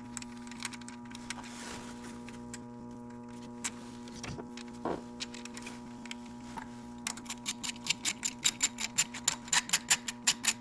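Ratchet wrench clicking as compressor mounting bolts are run in: scattered clicks at first, then from about seven seconds in a fast, steady run of sharp clicks. A steady hum sits underneath.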